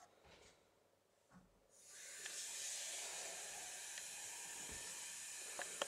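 A steady hiss comes in suddenly about two seconds in and holds even, with a couple of faint clicks near the end.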